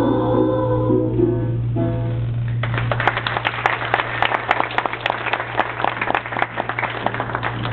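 Boys' voices hold the last sung note of the song, which ends about a second in, followed by a closing chord from the accompaniment. The audience then breaks into applause about two and a half seconds in and keeps clapping.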